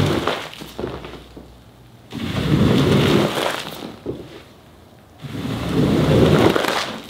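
Floor squeegee dragged across a soaked rug, pushing shampoo foam and dirty water off it: wet scraping strokes about every three seconds, two full strokes after the tail of one at the start.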